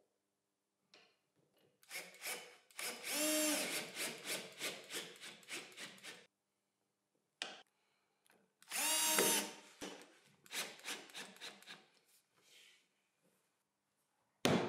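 Cordless drill/driver driving screws to fasten small magnets into plastic-laminate panels: two short whirring runs that rise and fall in pitch, each followed by a few fading clicks.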